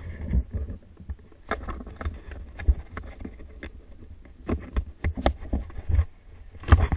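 Skis scraping and clattering over gravel and patchy crusted snow, with irregular sharp knocks every half second or so. A steady low rumble sits on the microphone underneath.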